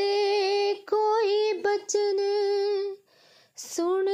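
A high voice singing a Punjabi devotional song unaccompanied, holding long drawn-out vowel notes with a slight waver. There is a short pause for breath about three seconds in before the next held note.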